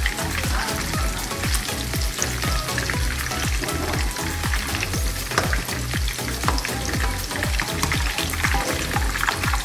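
Fish-and-pork meatballs sizzling and crackling as they deep-fry in hot oil, turned about with a metal slotted spoon. Background music with a steady thudding beat runs underneath.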